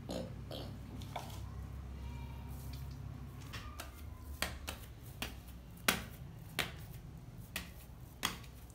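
Cookie dough being pressed and slapped by hand against a stainless steel plate: about seven sharp, irregular slaps and taps, starting about four seconds in, the loudest near the six-second mark.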